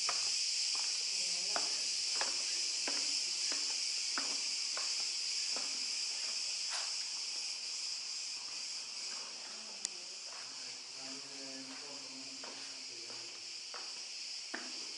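Steady, high buzzing chorus of cicadas, with footsteps on dirt about every two-thirds of a second through the first half. The chorus grows a little fainter as the walker goes down into the tomb passage.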